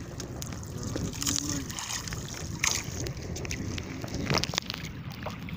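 Wind on the microphone and waves washing around a small wooden outrigger boat on choppy sea: a steady rushing noise. A few sharp knocks and clicks from handling on board stand out about two and a half and four seconds in.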